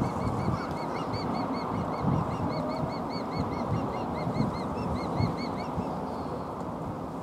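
Osprey calling: a rapid run of short, clear chirps, several a second, that stops about six seconds in.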